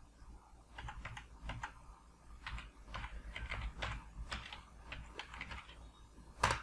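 Computer keyboard keys being typed in a quick irregular run of clicks, then one louder key press near the end.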